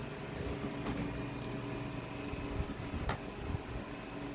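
A metal spoon clicking against a plastic bowl a couple of times, the sharpest about three seconds in, with quiet chewing over a steady mechanical hum.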